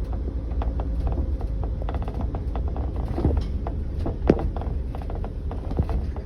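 Sliding side door of a 2022 Coachmen Galleria camper van creaking, clicking and rattling irregularly over a steady low rumble, with louder knocks about three and four seconds in: the door's noise problem.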